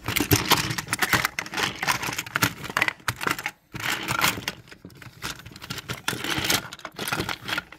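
Plastic toy trains and vans clattering and knocking against each other and the plastic track as a crash is staged by hand, a dense run of rattling clicks with a short break about three and a half seconds in.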